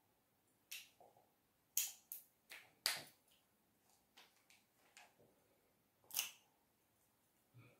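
A series of sharp clicks and taps at irregular intervals, about ten in all. The loudest come around two and three seconds in and just after six seconds.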